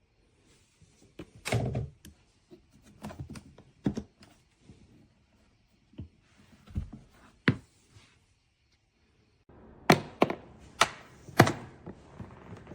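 Hard-shell plastic pistol case being handled: a string of irregular knocks and thunks, with a heavier thud about a second and a half in, and four sharp clicks in quick succession near the end.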